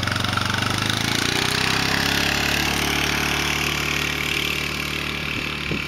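ATV (four-wheeler) engine idling steadily, its pitch settling slightly lower in the first couple of seconds.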